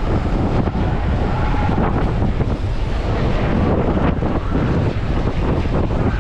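Wind buffeting the microphone while skating along the road at speed, a steady loud rumbling noise, mixed with the roll of roller-skate wheels on the tarmac.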